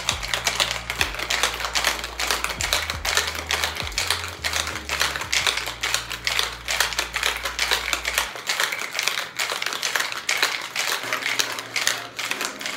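Ice cubes rattling in a metal cocktail shaker shaken hard, a fast, continuous clatter: the wet shake of an egg-white gin sour after the ice goes in.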